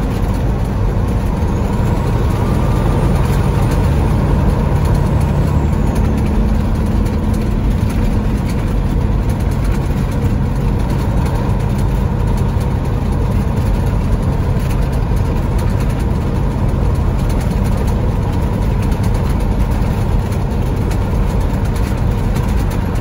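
Peterbilt 379 truck's diesel engine running steadily at about 1,300 rpm while cruising at highway speed, heard from inside the cab with road noise.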